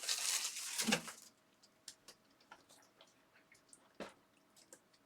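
Trading-card pack wrapper crinkling for about the first second, then light scattered clicks and ticks of cards being handled, with one sharper click about four seconds in.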